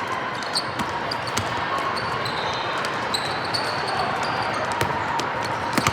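Basketball dribbled and bounced on a gym floor, irregular knocks with short sneaker squeaks, over a steady murmur of gym noise.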